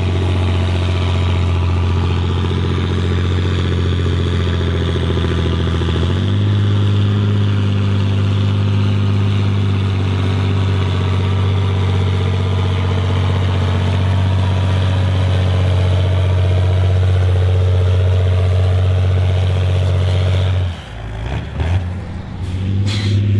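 A John Deere 4640 tractor's turbocharged six-cylinder diesel is pulling a sledge under full load, with a loud, steady engine note. The note steps up slightly about six seconds in. Near the end the engine sound drops away abruptly.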